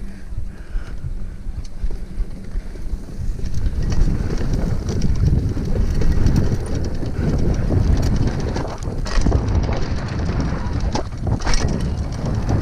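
Mountain bike rolling fast down a dirt trail: wind rushing over the microphone with a heavy rumble of tyres and rattling bike. It gets louder about four seconds in, with a few sharp clattering knocks over bumps near the end.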